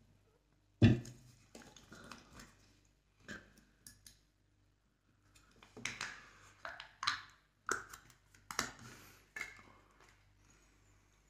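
Plastic drink bottle handled and its screw cap worked open: a sharp knock about a second in, then a run of quick plastic clicks and scrapes.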